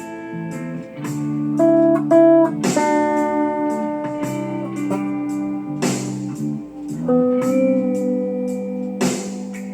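Lap steel guitar being played: chords struck about every three seconds and left to ring, with single notes picked between them and a short slide up into a note about two-thirds of the way through.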